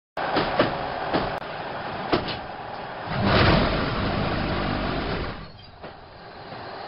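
Concrete block production line machinery running: a loud steady mechanical noise that cuts in abruptly, with several sharp metallic clanks in the first two seconds, a louder surge about three seconds in, and a brief drop near the end before it builds again.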